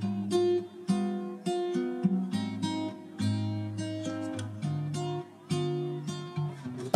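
Background music: acoustic guitar playing a run of plucked notes that ring and fade, a few to the second.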